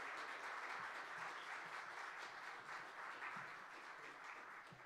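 A congregation applauding, a steady clapping of many hands that eases off slightly near the end.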